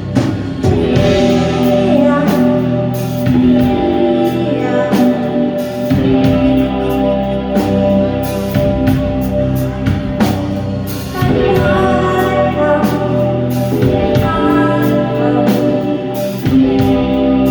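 Live band music: a singer over guitar, bass and drum kit, with steady drum hits under sustained guitar tones.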